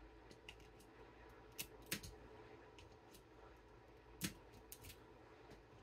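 A few faint, sharp snips and clicks spaced out over several seconds, of window screen mesh being cut.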